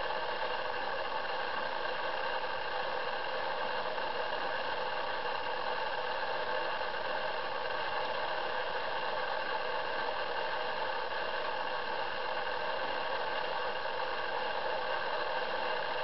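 Steady, even hiss that holds at one level throughout, with no bird calls heard.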